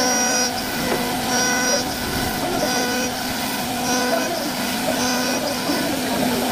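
CNC wood-carving router running steadily, with a high whine that swells and fades about every second and a half.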